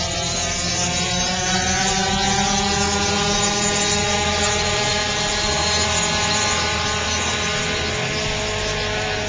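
Small dirt bike engines running, their pitch rising over the first couple of seconds and then slowly falling away.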